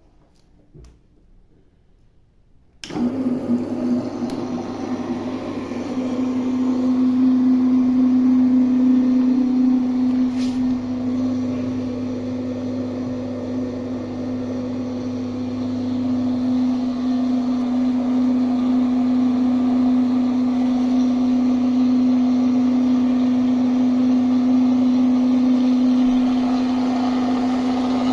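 Cooling fans of a homemade thermoelectric (Peltier) refrigerator switched on about three seconds in, then running with a steady hum and a constant tone.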